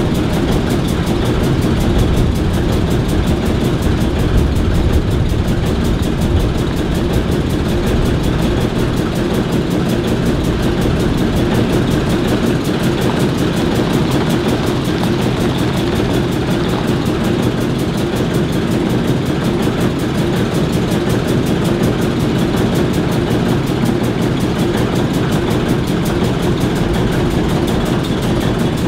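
ALCO S4 and S7 switcher locomotives idling together, their six-cylinder turbocharged 539 diesels running at a steady low idle.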